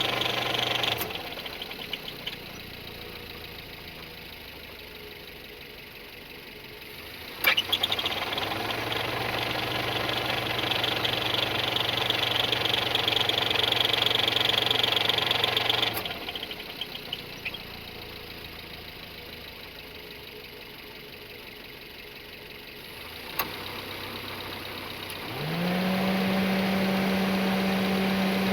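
Toyota bB engine idling and twice raised to a steady higher rev and held, with a knock-like abnormal noise that the owner suspects is either a broken piston ring land or a worn connecting-rod bearing. A sharp click sounds as the revs first rise.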